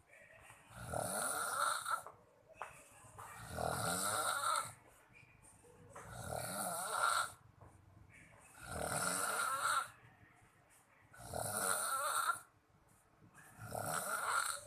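A sleeping person snoring heavily: six long snores, one about every two and a half seconds, with much quieter gaps between.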